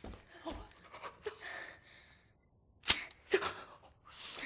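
Film fight sound effects: a run of short hits and thuds, a brief hush, then a sharp crack just under three seconds in, the loudest sound, followed by two more hits.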